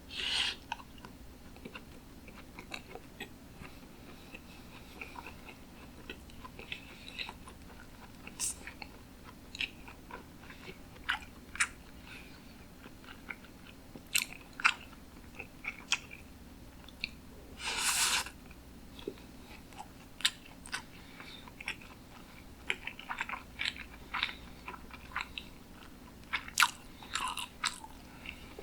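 Close-miked chewing of sushi: irregular wet mouth clicks and smacks, with a longer, louder bite sound about eighteen seconds in.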